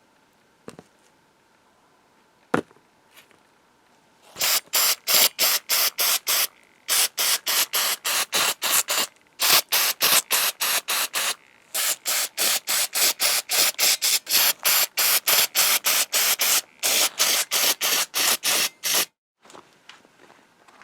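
Aerosol can of aircraft paint remover sprayed in quick short hissing bursts, about three a second, in several runs with brief pauses. Two light knocks come before the spraying starts.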